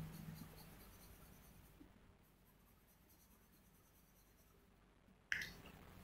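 Faint scratching of a graphite pencil shading on drawing paper. A low hum fades out in the first second, and a short sharp noise comes just over five seconds in.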